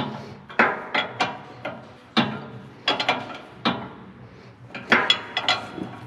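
Socket ratchet wrench clicking in short, irregular strokes as the top bolt of a canister-style filter is tightened down, the canister held by hand so it does not spin.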